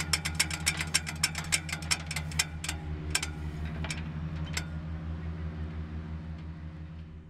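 Steady low engine-like hum under rapid mechanical clicking, about five or six clicks a second, which slows and thins to scattered clicks after about three seconds; the sound then fades out.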